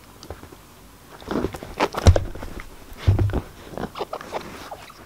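Miniature dachshund moving about on carpet close to the microphone: a run of soft scuffs and clicks starting about a second in, with two heavier low thumps near the middle.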